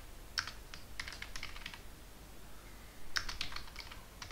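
Typing on a computer keyboard: quick runs of keystroke clicks, with a pause of about a second midway before a last run of keys.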